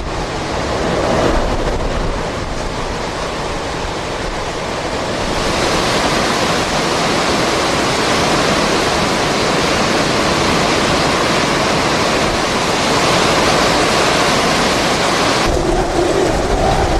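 Hurricane-force wind blowing hard with wind noise on the microphone, as the back side of the eyewall arrives after the eye; it grows stronger about five seconds in and turns deeper near the end.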